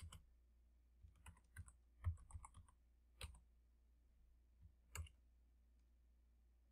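Faint computer keyboard keystrokes: short runs of typing with pauses between them, the last taps about five seconds in.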